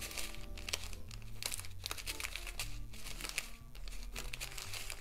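Small plastic zip bag of diamond-painting drills crinkling and rustling as it is handled, with many quick clicks and rustles throughout. Soft background music plays underneath.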